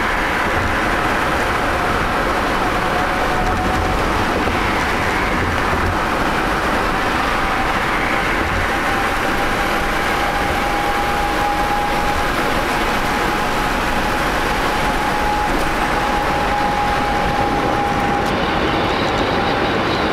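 Steady road and tyre noise of a car travelling at highway speed on an interstate, with a thin steady whine running through it.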